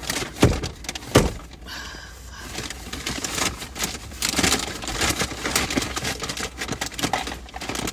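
Paper takeout bag being handled and opened: crinkling and rustling, with two sharp knocks in the first second and a half.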